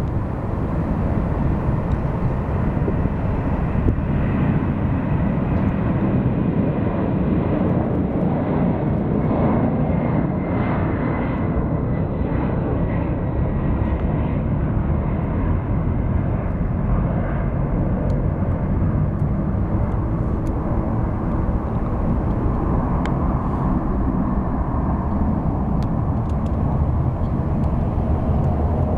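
Boeing 747's four jet engines at takeoff thrust: a loud, steady roar as the airliner runs down the runway, lifts off and climbs away, with a faint whine in the middle.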